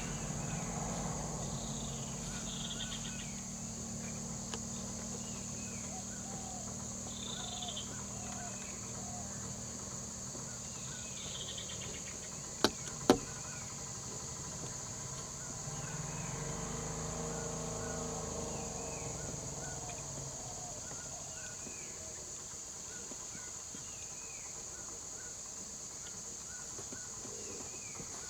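Outdoor forest ambience: a steady high-pitched insect drone with repeated short bird chirps over it. Two sharp clicks come about 13 seconds in, and a low engine hum swells and fades a few seconds later.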